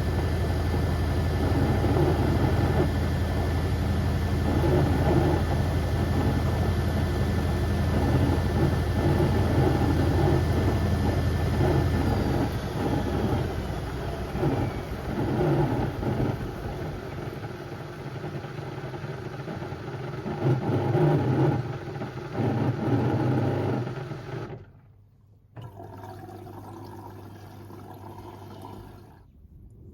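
Beko WM74135 washing machine running with a heavy load of door mats: a steady motor whine and drum rumble, with the whine falling in pitch and the steady hum dropping away about twelve seconds in. Uneven rumbling and knocking of the drum follows, then a brief gap near the end.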